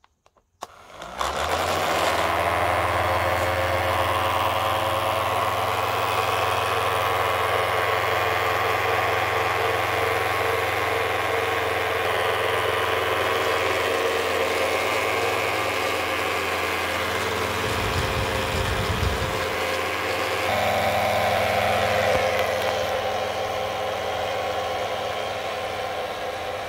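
Small 3.7 V battery-powered electric motors driving the plastic propellers of a homemade toy plane. They are switched on about a second in and then whir steadily, and the tone of the whir shifts about two-thirds of the way through.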